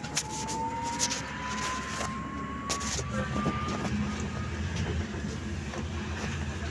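Trolleybus in motion: its electric traction motor whines, the whine rising slowly in pitch as it accelerates and fading about two-thirds of the way through. Underneath is a low road rumble, with a few sharp knocks and rattles from the body.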